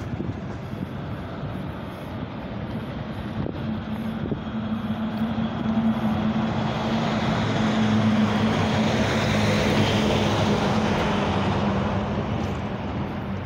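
Street traffic with a box truck driving past close by: its engine drone swells over several seconds to its loudest past the middle, then eases near the end.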